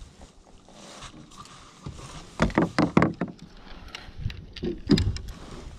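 Fishing rods and tackle knocking and clattering against a kayak as a spinning rod is picked up. A quick run of knocks comes about two and a half seconds in, and a few more near the end.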